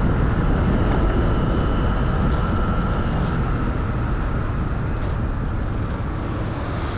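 Motorcycle riding noise: heavy wind rumble on the microphone over the running engine, with a faint steady whine that fades out about halfway. The whole sound slowly gets quieter.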